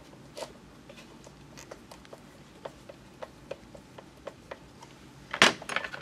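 Screwdriver tightening small screws into the plastic top cap of a drill bit sharpener, with faint scattered clicks and ticks. Near the end comes a louder, sharp clatter as a tool is handled.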